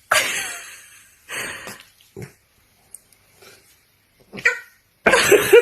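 A puppy barking several times in short bursts, with gaps between them.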